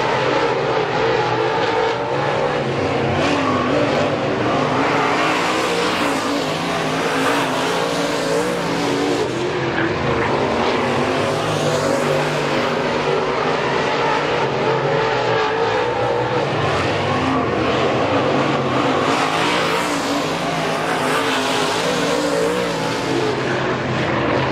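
A field of dirt-track late model race cars running laps together, several engines at once, their pitch rising and falling as they accelerate out of the turns and pass by.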